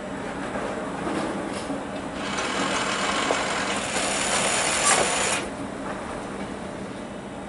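A departing passenger train's coaches rolling away over the rails, their wheels running on the track. A louder rushing noise rises about two seconds in and drops away suddenly about five and a half seconds in.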